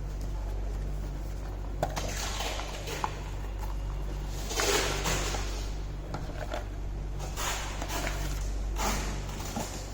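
Rubbing and handling noises with a few sharp clicks, over a steady low hum.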